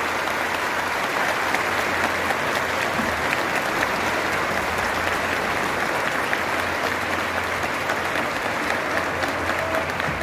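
Large crowd applauding steadily, many hands clapping at once with no break.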